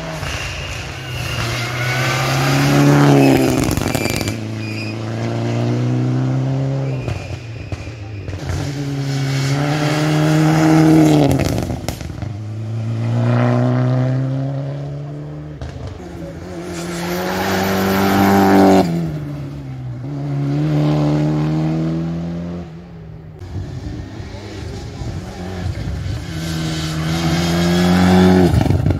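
Rally car engine accelerating hard up through the gears. Its pitch climbs and drops back at each shift, in repeated runs as the car drives the stage. It is loudest near the end, as a white Mitsubishi Lancer Evolution passes close by at speed.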